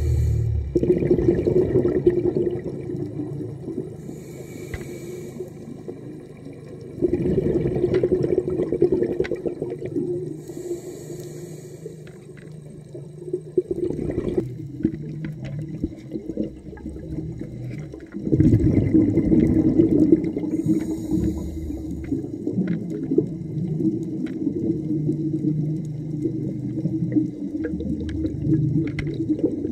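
Muffled underwater sound of a diver's breathing. Short hisses come every few seconds, followed by swelling, rushing bubble noise from exhaled air.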